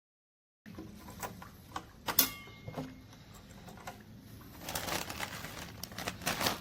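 Scattered clicks and knocks of objects being handled, the loudest about two seconds in with a brief high tone after it, then a few seconds of rustling.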